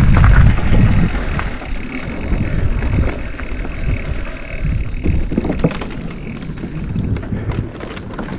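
Mountain bike rolling over a dirt trail: low wind rumble on the microphone with the rattle of the bike over rough ground, loudest in the first second.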